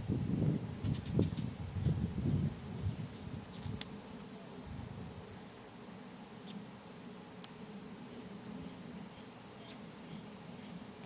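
Steady high-pitched insect chorus, a continuous shrill buzz. For the first two or three seconds there are low bumps and rumbles from the scope being handled, and a few faint clicks later.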